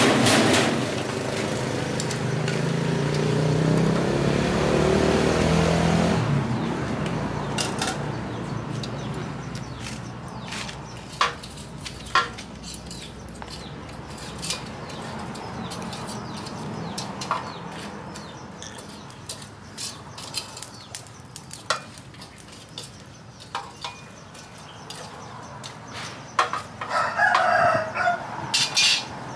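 A rooster crows loudly near the end. For the first six seconds a motor vehicle's engine runs loudly, then fades away, and scattered sharp clicks and taps follow.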